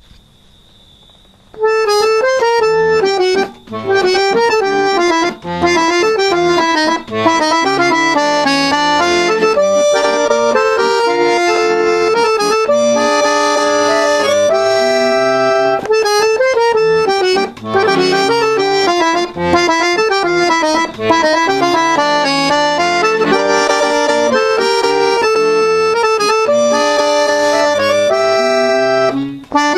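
Instrumental tango music led by a squeezebox. It begins about a second and a half in and plays held notes and chords, with short pauses between phrases.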